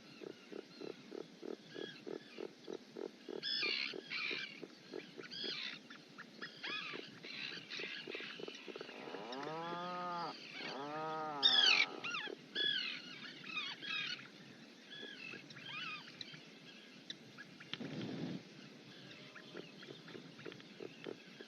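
Auks calling: a low pulsing call at about three pulses a second, with high chirps over it and two long calls that rise and fall in pitch about halfway through, then a short low grunt near the end.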